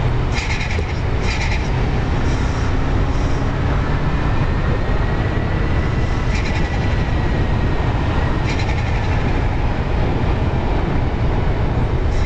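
Steady low road and engine rumble of a car being driven, with short patches of higher hiss coming and going every second or two.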